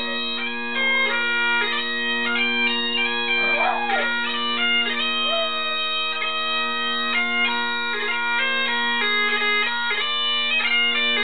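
Bagpipes playing a tune over their steady drone, with a dog howling along in a few wavering howls during the first half.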